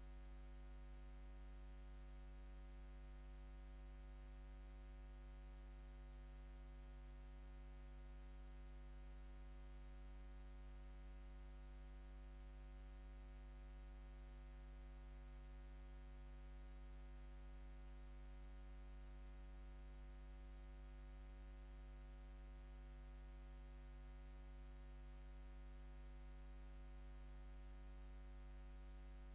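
Near silence with a faint, steady low hum.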